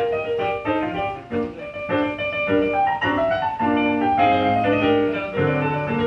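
Keyboard played with a piano sound: a quick melody over chords, notes changing several times a second.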